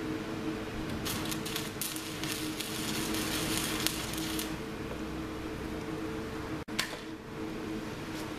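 Electric arc tack-welding on a steel harvester chain bar: the arc crackles and sizzles for about three and a half seconds, from about a second in, over a steady hum. A single sharp click comes about two-thirds of the way through.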